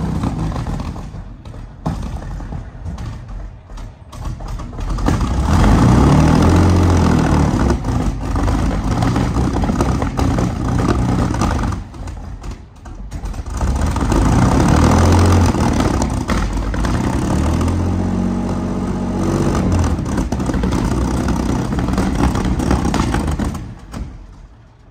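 Large armoured-vehicle engine revving up and falling back in three long swells, with dips to a lower, rougher note between them, then dying away near the end. It runs unevenly, "like a V6", and sounds awful: the engine seems not to be firing on all its cylinders.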